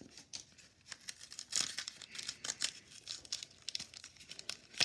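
Paper hockey card pack wrapper being torn open and crinkled by hand, in irregular rustles that are loudest about a second and a half in.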